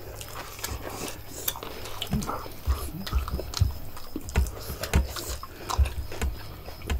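Close-miked eating sounds: chewing and hands picking food from plates and a salad bowl, with small clicks. From about two seconds in, soft low knocks come roughly every half second.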